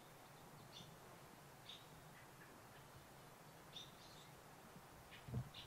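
Near-quiet garden air with a small bird's faint short chirps, about one a second. A single soft low thump comes near the end.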